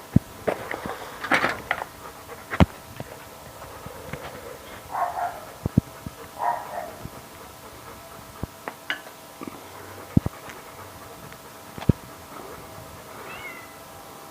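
Domestic cat meowing: two short meows about five and six and a half seconds in, and a faint one near the end, among scattered sharp clicks or taps.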